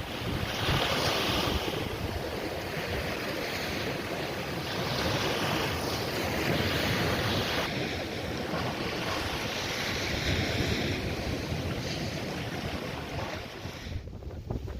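Sea waves washing onto a beach, the surf's hiss swelling and fading three or four times, with wind buffeting the microphone throughout.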